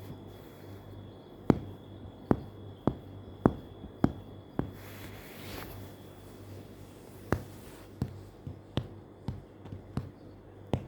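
About a dozen sharp, irregular taps, bunched in the first half and scattered toward the end, over a faint steady low hum.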